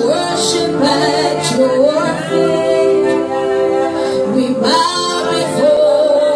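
Worship music: voices singing long, sliding held notes over sustained chords.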